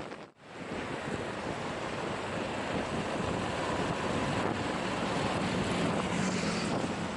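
Wind rushing over the microphone on a moving motorcycle, with the engine and road noise running underneath. The sound cuts out briefly near the start.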